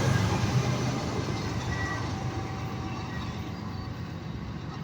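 BNSF freight train rolling away after passing, its low rumble and rail noise fading steadily.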